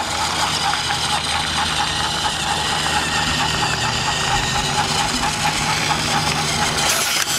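Battery-powered Thomas TrackMaster toy engine running along plastic track, its small electric motor whirring steadily with a fast, even rhythm.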